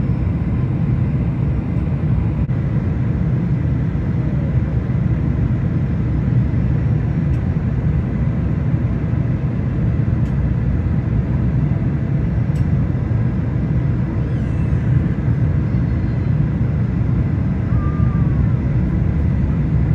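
Steady low rumble inside the cabin of a Boeing 747-400 airliner, heard from a window seat behind the wing: the jet engines and the airflow past the fuselage during the descent toward landing.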